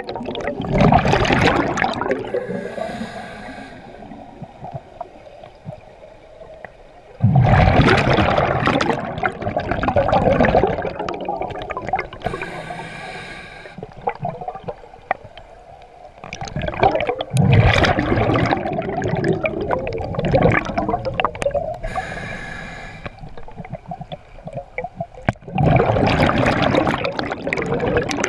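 Scuba diver breathing slowly through an open-circuit regulator underwater. Each breath is a short hissing inhale, then a long rush of bubbles on the exhale, repeating about every nine seconds.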